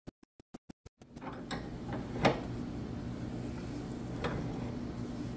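For about the first second, quick regular hand-tool strokes on the wooden axe handle, about six a second with silence between. Then a steady low shop hum with a few knocks and clunks of the handle at the bench vise, the loudest about two seconds in.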